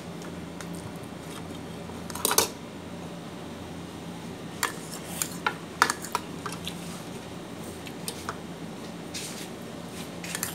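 Metal fork clinking and scraping on a plate as noodles are eaten, with a run of sharp clinks in the middle and a short rushing noise about two seconds in. A steady low hum sits underneath.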